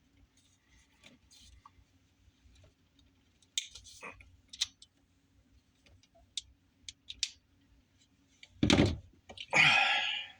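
Scattered small plastic clicks as a cable plug and wires are handled, then near the end two loud squeezes of a hand crimping tool closing on the plug, a second or so apart.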